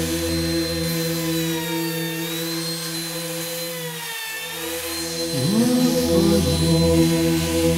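Compact trim router running with a high whine that dips in pitch and recovers as it cuts along the edge of a wooden panel. Orthodox choral chant over a low held drone plays throughout, and the singing voices come in louder about five seconds in.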